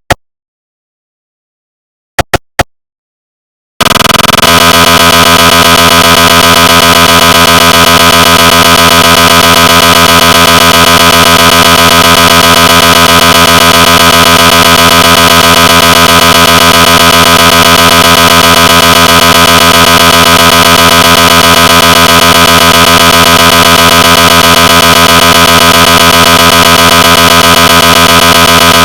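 Recreated GE 750w 3T MRI scanner sounds: a few short blips in the first seconds, then about four seconds in a loud scan sequence starts, a fast, even pulsing buzz with steady tones that runs on unchanged.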